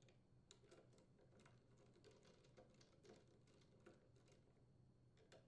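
Near silence with faint, irregular light clicks of a 3/8-inch socket driver turning and seating the air filter mounting nuts on a hedge trimmer's small engine.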